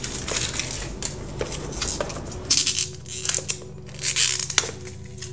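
Clear plastic wrap crinkling and tearing as it is pulled off a small cardboard earbud box, with the scrape of hands handling the box, in several short bursts.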